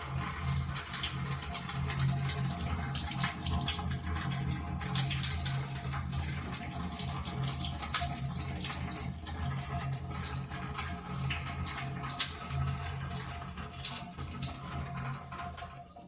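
Water draining out of a Smartmi ultrasonic humidifier's water tank after its release is pressed, splashing steadily and dying away near the end.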